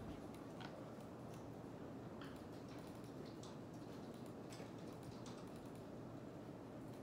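Quiet room tone with a steady low hum and faint, irregular clicks of typing on a computer keyboard.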